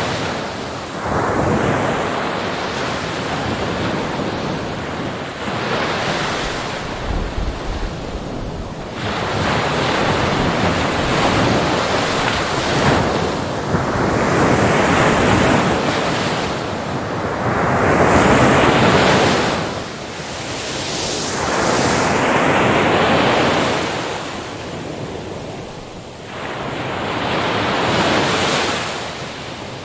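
Ocean waves breaking on a beach, the surf swelling and washing back in repeated surges every few seconds, with some wind noise on the microphone.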